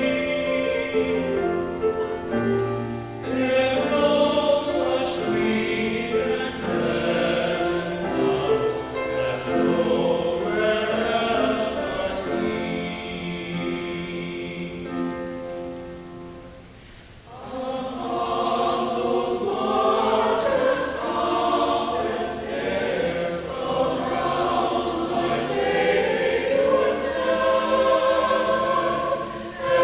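Mixed choir of men's and women's voices singing, with a brief lull a little past halfway before the next phrase comes in.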